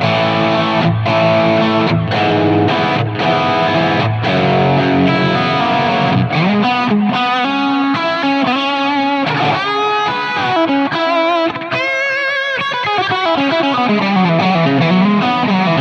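Electric guitar played through a Line 6 Helix running a clone of a 1966 Vox AC30, pushed by a TS-808 overdrive into a crunchy tone. Strummed chords for about the first six seconds, then a single-note lead line with vibrato and bends.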